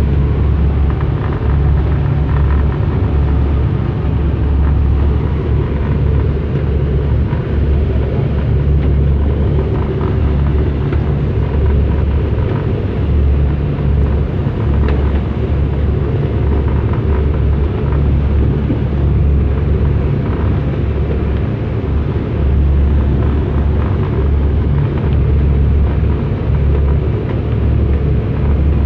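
Passenger boat under way in rough sea: a steady, loud low rumble of the engine mixed with wind and water rushing past the hull.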